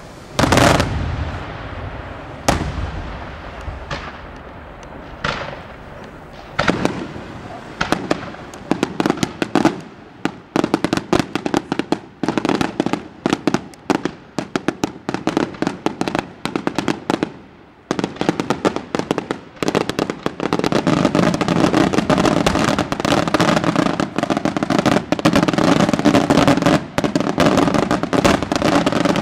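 Daytime aerial fireworks bursting: a loud bang about half a second in and another about two seconds later, then scattered reports that quicken into a dense, almost continuous barrage of rapid bangs and crackles.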